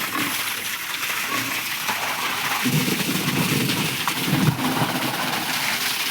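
Steady hiss of running or spraying water, with low grunts from pigs between about two and a half and four and a half seconds in.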